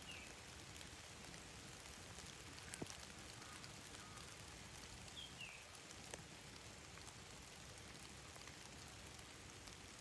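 Faint steady hiss of light rain on foliage, with a few soft drip ticks. A small bird's short falling two-note chirp sounds at the start and again about five seconds in.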